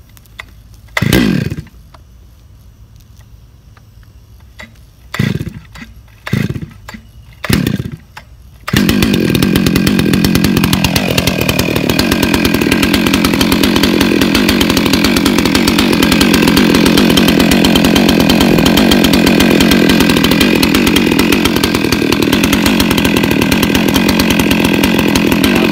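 STIHL MS 651 two-stroke chainsaw being started: four short, separate bursts from attempts to start it. About nine seconds in the engine catches, drops briefly in pitch, then runs steadily and loudly.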